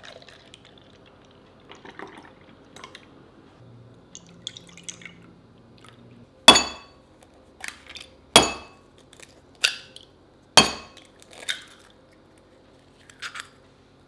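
Eggs being cracked against the rim of a ceramic bowl: three sharp cracks about two seconds apart, each followed by a lighter click of shell, with faint handling noise before the first.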